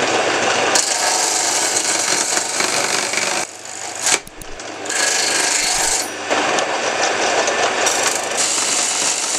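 Table-mounted circular saw cutting a block of wood fed by hand, in two passes with a short quieter break near the middle.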